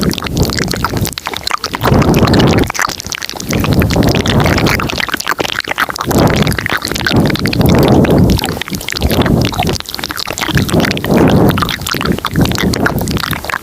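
Layered ASMR mouth sounds recorded very close to the microphone: wet clicks and smacks over repeated swells of breathy sound, one every second or two.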